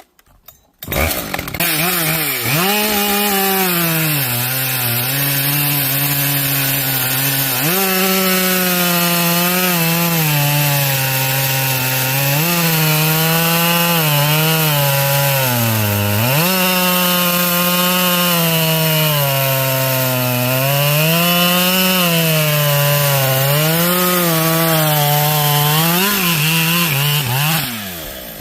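Husqvarna 572 XP two-stroke chainsaw revving up about a second in and cutting along the grain of a log round. Its engine pitch repeatedly dips under load and recovers, then drops off near the end.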